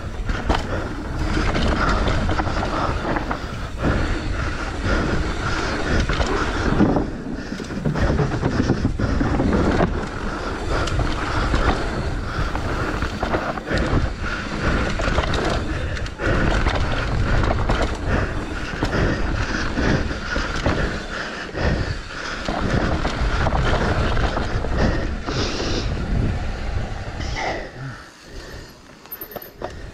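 Mountain bike riding fast down a dirt trail: tyres rolling over dirt and roots, with the chain and frame clattering over the bumps. The sound drops away near the end.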